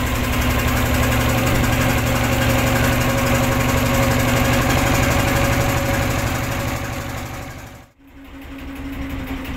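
A boat's engine running steadily as the boat moves across the lake. It fades out about eight seconds in, and a quieter engine hum starts again after.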